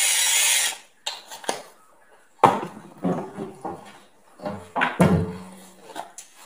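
Electric pepper grinder running with a steady grinding whirr that cuts off within the first second. Then a run of knocks and clatter as a kitchen cupboard is opened and things inside are handled, the loudest knock about five seconds in.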